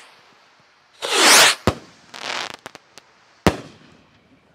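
Firework rockets: a rushing whoosh of a rocket taking off about a second in, a few small crackles, then a single sharp bang of a rocket bursting near the end.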